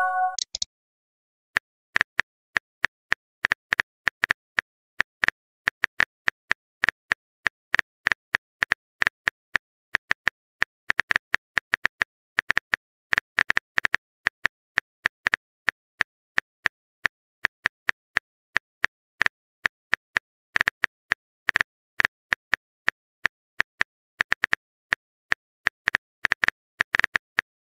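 Phone keyboard typing clicks: short, sharp taps coming irregularly, a few a second in quick runs with short pauses between.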